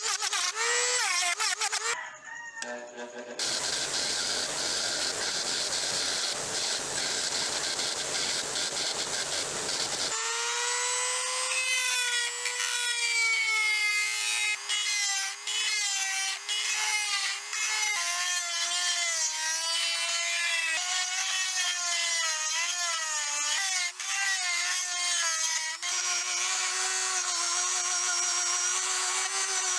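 High-speed rotary tool with an abrasive grinding stone grinding a steel hammer head. A harsh grinding stretch runs up to about a third of the way in; after that the motor's whine wavers up and down as the stone is worked against the metal.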